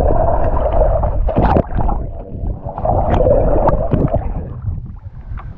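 Lake water gurgling and splashing around a camera held at and under the surface, with a hooked bass thrashing and splashing beside it. There are two stretches of muffled rushing water with sharp splashes between them, and it eases off near the end.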